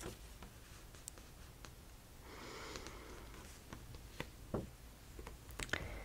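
A quiet pause over faint room hiss: one soft breath about two and a half seconds in, and a few faint scattered clicks.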